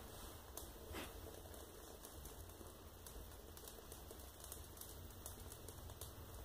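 Fire in a closed wood stove crackling faintly, with irregular small pops several times a second and a slightly louder pop about a second in, as a disposable diaper burns on the wood.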